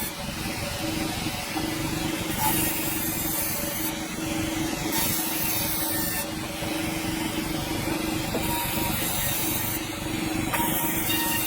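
Sawmill running with a steady hum while its blade cuts through a hardwood log; a high cutting noise comes and goes in stretches of a second or two.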